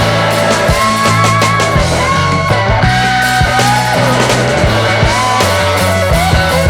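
Rock background music with a steady drum beat, bass and a sung or lead melody line.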